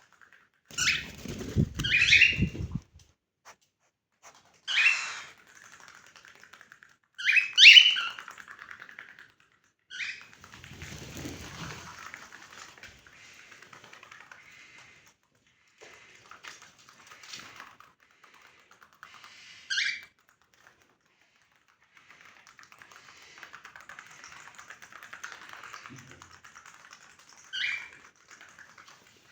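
Cockatiels giving short, sharp chirping calls, about seven scattered through, some doubled. Between the calls there is faint scratching and tapping, with a low knocking or rattle under the first calls.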